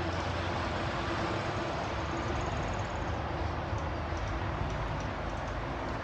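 Steady road-traffic noise from passing vehicles: an even rush with a low hum and a steady tone that fades out about halfway through.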